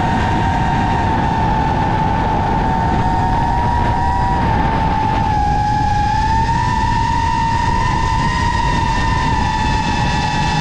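A steady machine whine over a low rumble, its pitch sagging slightly about five seconds in and then rising back.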